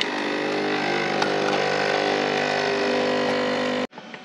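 Krups Nespresso capsule coffee machine's pump buzzing steadily as it brews a coffee into an enamel mug. The buzz stops suddenly near the end, leaving a few faint knocks.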